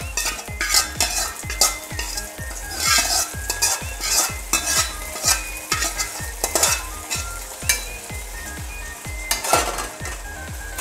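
Hot ghee with fried cashews and raisins sizzling as it is tipped from a steel pan into a pot of payasam, with a spoon scraping and clinking repeatedly against the pan to empty it.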